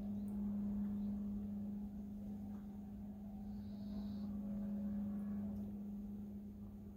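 Steady low hum with a faint room rumble beneath it.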